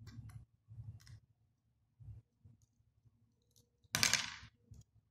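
Beads clicking softly against each other as a beaded piece strung on fishing line is handled, with a brief, louder rattle about four seconds in.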